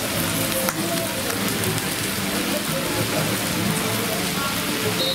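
Steady sizzling of food cooking, with crowd chatter underneath.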